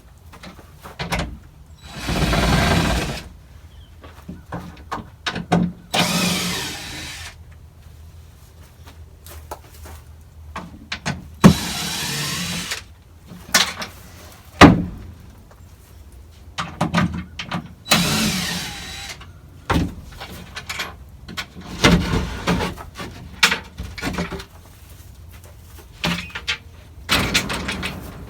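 Cordless drill run in short bursts of about a second each, driving or backing out screws. Sharp knocks and clatter come between the bursts.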